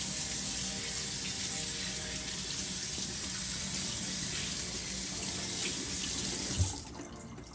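Kitchen faucet running steadily onto a whole permit fish as it is rinsed by hand in a stainless steel sink, water splashing off the fish into the basin. Near the end there is a short knock and the running water stops.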